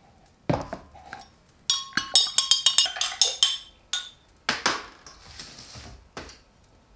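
Metal kitchen utensils and dishes clinking: a thump, then a quick run of ringing clinks for about two seconds, then a brief rush of noise.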